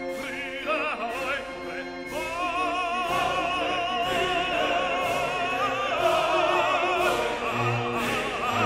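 Background music: a high operatic voice sings long notes with a wide vibrato over orchestral accompaniment.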